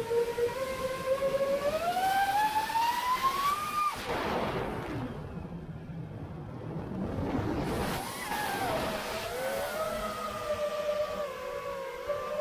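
Brushless motors and propellers of a 5-inch FPV freestyle quadcopter whining, recorded by its onboard action camera. The pitch climbs with throttle about two seconds in, gives way to a rush of wind noise for several seconds in the middle, then comes back and settles to a steadier, lower whine.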